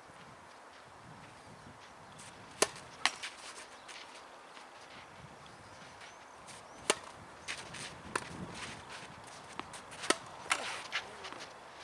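Tennis balls being struck with rackets and bouncing on a clay court: a scattering of sharp hits, the loudest about seven seconds in when the near player serves, with another hit about ten seconds in on the second serve.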